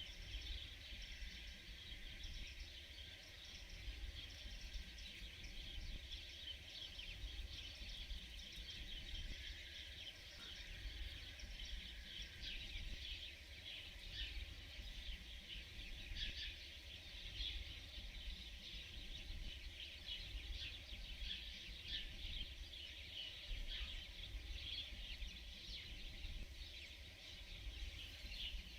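Outdoor ambience: a dense, continuous chorus of many high chirps and calls, with a low rumble underneath.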